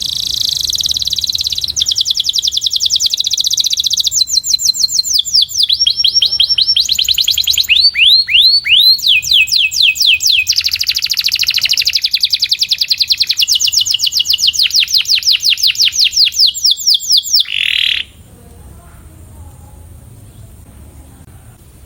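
Domestic canary singing one long song made of rapidly repeated notes, moving through several trills of different speed and pitch. The song stops abruptly about eighteen seconds in.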